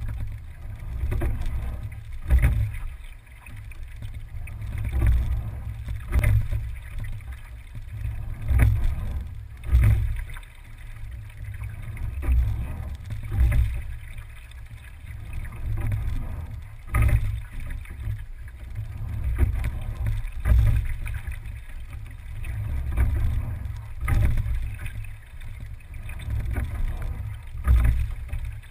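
A single scull being rowed: sharp knocks from the oars and riggers, roughly two to a stroke and a stroke about every three and a half to four seconds, over a steady low rumble.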